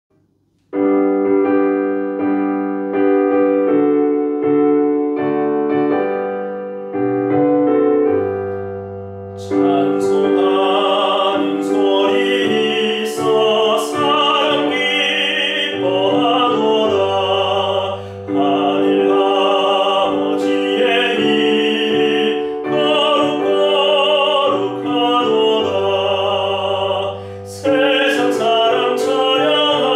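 Piano accompaniment plays a hymn introduction, then about nine and a half seconds in a man's solo voice enters, singing the hymn verse in Korean over the piano.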